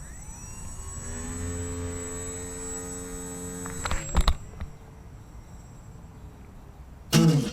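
Brushless electric motor of an RC glider (D2822 1800KV with a 7x5 propeller) spinning up with a rising whine, then running steadily for about three seconds. A few knocks come about four seconds in, and the motor drops to a faint hum. Guitar music starts near the end.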